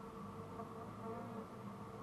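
Mini Cooper S (R53) four-cylinder engine running low and steady, heard as a quiet hum of several tones inside the car.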